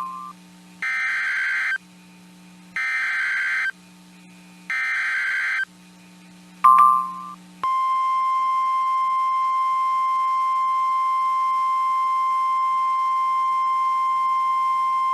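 NOAA Weather Radio alert signals: three short buzzy digital data bursts, each about a second long, then a brief beep, and from about halfway through a steady single-pitch alarm tone. These are the SAME header bursts and the 1050 Hz warning alarm tone that come before a new warning is read.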